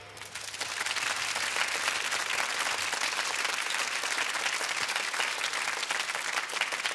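Studio audience applauding at the end of a piece, a steady patter of clapping that builds over the first second and then holds even. A faint low hum lies under it for the first couple of seconds.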